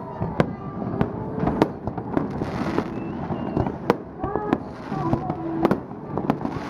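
Fireworks display going off, a dense run of sharp, irregularly spaced bangs and pops, several a second at times.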